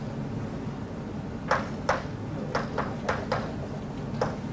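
Chalk writing on a blackboard: a run of short, sharp taps and scrapes of the chalk stick against the board, starting about a second and a half in, over a steady low hum.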